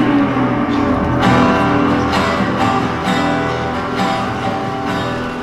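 Music with strummed guitar chords, a new chord struck about once a second.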